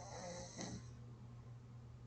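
A person snoring in sleep. One faint snore dies away in the first second, with a short sharp click near its end, followed by a pause, while a steady low hum runs underneath.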